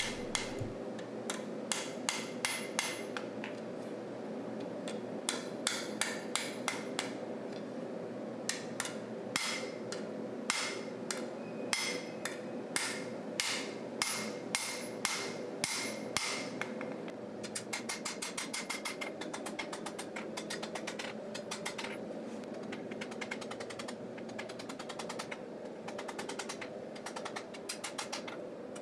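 Hand hammer repeatedly striking a forged steel knife blade clamped in a vise, peening material down into the heel of the blade. For the first two thirds the blows come about two or three a second and louder, then turn quicker and lighter, about four a second, over a steady background hum.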